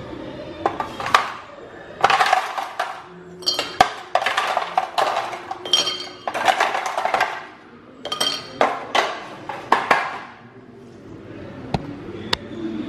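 Ice cubes clattering in a plastic ice box and clinking into a tall drinking glass: a run of rattles and glassy clinks that stops about ten seconds in, then two light clicks near the end.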